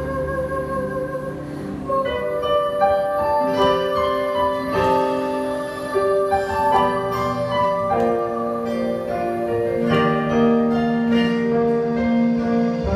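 Instrumental interlude of a slow ballad played live, led by piano, with sustained chords changing every couple of seconds.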